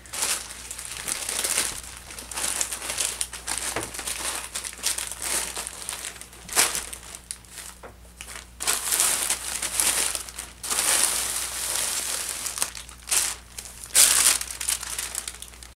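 Clear plastic poly bags and a plastic mailer crinkling and rustling in irregular bursts as they are gathered up by hand and stepped through by a cat, with sharper loud crackles about six and a half seconds in and again near the end.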